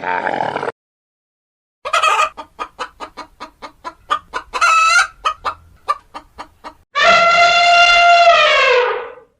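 Chicken calling: a quick run of short clucks at about four a second, with one longer squawk among them, followed by one long rooster crow whose pitch falls at the end.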